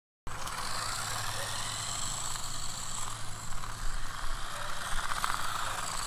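Small battery-powered RC toy car driving on a concrete driveway, its electric motors and gearing giving a steady whir over tyre noise. It starts abruptly just after the beginning.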